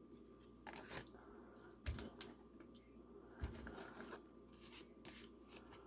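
Faint rustles and light clicks of trading cards being handled and flipped through, a few short sounds spaced about a second apart.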